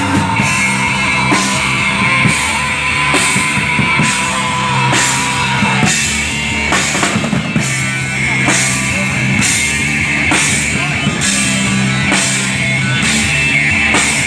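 Live rock band playing an instrumental passage: guitar and drum kit, with cymbal hits about once a second over a steady beat.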